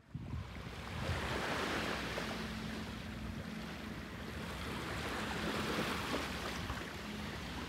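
Small waves washing onto the beach in a steady surf hiss that swells and eases, with low wind rumble on the microphone.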